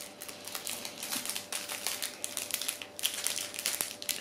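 Plastic and paper sachets crinkling and rustling in the hands, a quick irregular run of small clicks and crackles. The sachets are a guide-sticker sheet and an alcohol prep pad packet.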